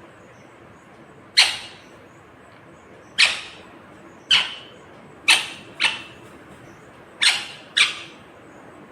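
Ringneck parakeet giving seven short, sharp, high calls, several of them in quick pairs.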